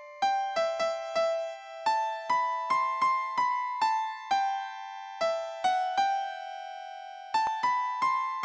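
Background music: a simple melody played on a piano-like keyboard, single notes struck one after another, each ringing and fading, with a couple of short pauses between phrases.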